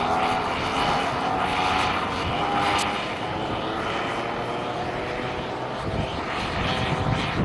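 Two-stroke chainsaw engine powering a motorised skateboard, running at high revs with a steady buzzing note that eases off a little after about three seconds.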